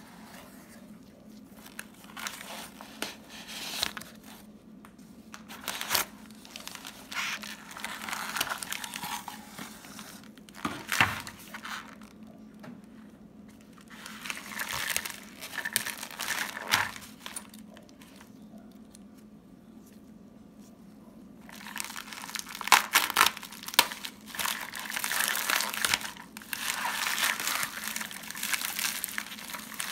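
Crumpled kraft packing paper and a plastic mailer bag rustling and crinkling as they are handled, in irregular spells with a short lull. Near the end the crinkling grows louder and denser, with tearing, as the white plastic mailer is ripped open.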